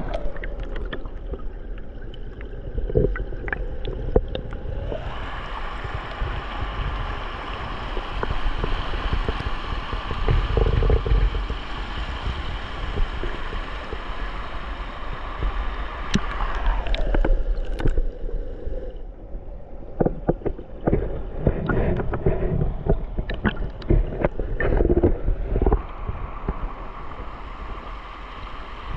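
Rushing creek water: a steady hiss and gurgle under a low rumble, with scattered clicks and knocks throughout.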